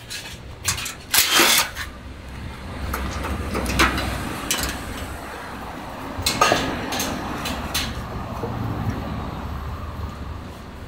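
Irregular knocks, clanks and rattles of a metal motorcycle shipping crate being taken apart, over a steady low rumble.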